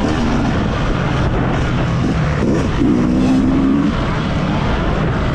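Yamaha motocross bike engine heard from the bike's own onboard camera, the revs dropping and climbing again about halfway through, over wind rush on the microphone.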